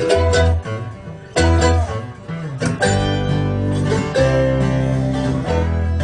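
Live bluegrass band playing the instrumental intro of a song, with banjo and guitar picking over steady bass notes.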